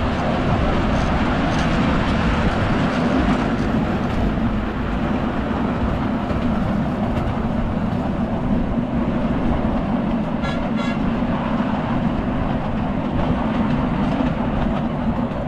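Miniature ride-on train running along its track, heard from aboard: a steady running noise from the wheels and running gear.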